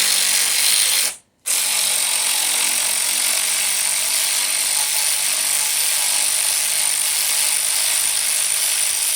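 Ratchet working 10 mm head-area bolts loose on an LM7 5.3 V8 during teardown, a steady mechanical whirring and ratcheting that breaks off briefly about a second in.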